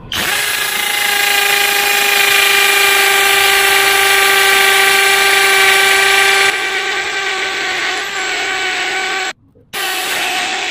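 Nanwei cordless impact drill in hammer mode boring into concrete: a loud, steady whine that bites only slowly as the drill struggles in the cement. It eases slightly about six and a half seconds in, cuts out for a moment near the end, then starts again.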